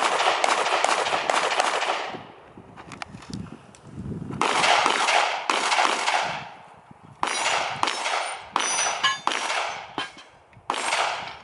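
Handgun firing strings of rapid shots in about five bursts, with short pauses between them as the shooter moves and changes position. Metallic clangs ring out among the shots around the middle.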